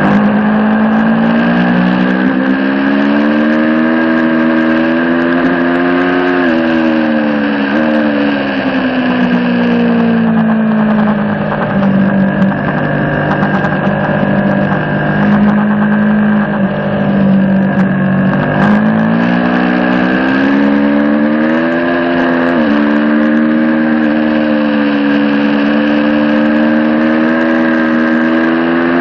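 2022 Aprilia Tuono V4 Factory's V4 engine through an Akrapovic slip-on exhaust, heard from on board at speed. The revs climb, drop sharply twice about a quarter of the way in, sink slowly off the throttle through a long stretch, then climb hard again, with one more sharp drop before running on at full throttle near the end.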